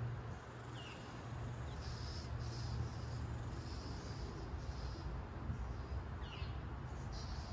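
Outdoor ambience: insects buzzing in repeated short pulses over a steady low hum, with a couple of brief high chirps.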